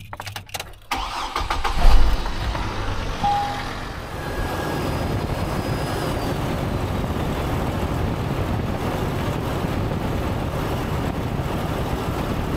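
2007 Hummer H3's 3.7-litre inline-five engine cranking and catching about a second in, flaring up briefly, then settling into a steady idle. This is the first start after a fresh oil and filter change.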